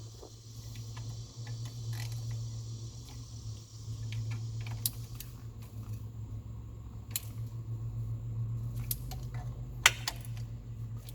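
Scattered light clicks and clinks of tools and parts being handled in a car's engine bay, with one sharper click near the end, over a steady low hum.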